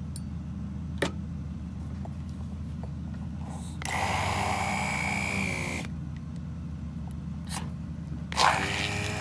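Handheld Braun immersion blender run in two short bursts, blending thick cream cheese and cottage cheese in a plastic beaker: the first about four seconds in for two seconds, its pitch sagging as it works, the second starting near the end. A click comes about a second in, and a steady low hum runs underneath.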